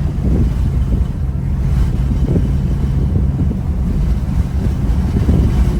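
Low, steady rumble of a moving vehicle with wind buffeting the microphone in gusts.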